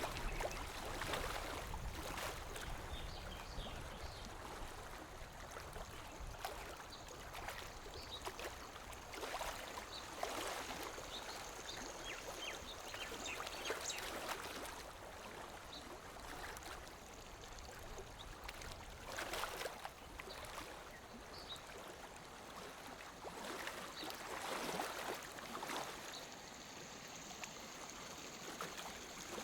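Lake water lapping against the shore in small, irregular splashes over a steady wash of water.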